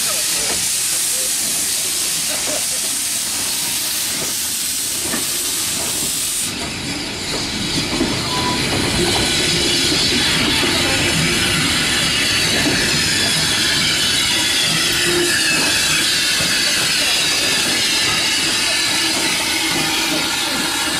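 Steam hissing from a W. G. Bagnall 0-4-0 saddle tank steam locomotive as it moves off with a short train, while its brake van and open wagons roll past on the rails with a steady rumble. The loudest high hiss drops away abruptly about six and a half seconds in.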